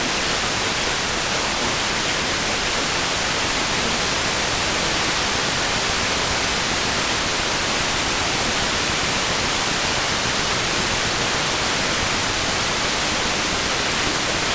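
Steady, even static hiss, like a radio receiver with no signal, about as loud as the alert speech around it and unchanging throughout.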